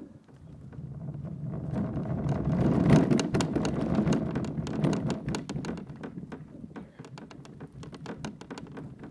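Homemade PVC kayak cart rolling under a loaded kayak as it is dragged over rough ground, picked up through the kayak's hull. The wheels rumble and the cart rattles and clatters with many quick knocks. It grows louder over the first few seconds, then eases.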